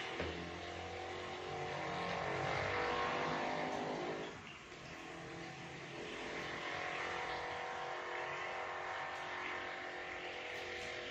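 An engine's drone, steady but shifting slowly in pitch, louder for the first few seconds and then falling away, with a few faint taps.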